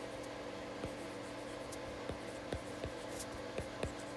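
Stylus tip tapping and sliding on a tablet's glass screen during handwriting: irregular light clicks, several a second at times, over a faint steady hum.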